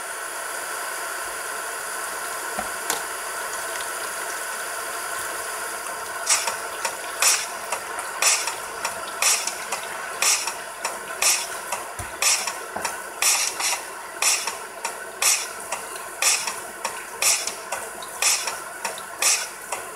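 Tap water running steadily into a stainless steel sink as vegetables are rinsed under the stream. From about six seconds in, a sharp, regular tap sounds about once a second over the water.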